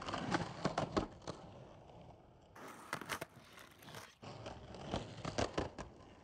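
Skateboard wheels rolling on concrete and clacking over sidewalk cracks and a curb edge, with sharp knocks in three clusters: in the first second, about three seconds in, and about five seconds in.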